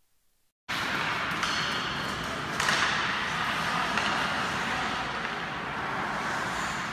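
Live game sound of an ice hockey game in an indoor rink, starting abruptly under a second in: a steady noise of skates on the ice, with sharp stick-and-puck hits, the loudest about two and a half seconds in.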